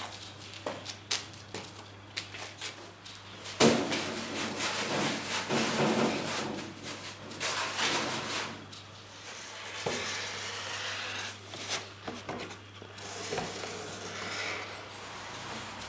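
Hand work on metal: rubbing and scraping in uneven stretches, broken by scattered knocks. The sharpest knock comes about three and a half seconds in. A steady low hum runs beneath.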